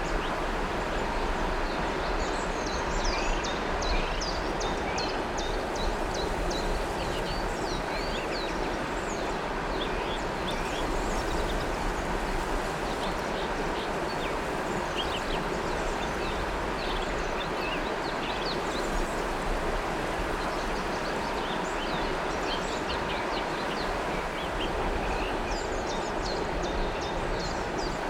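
River water rushing steadily, with many small birds chirping in short, quick calls above it, coming in bursts of several calls every few seconds.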